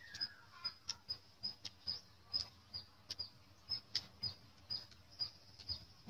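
Close-miked eating sounds: wet chewing and lip smacking, a quick run of short clicks about three a second.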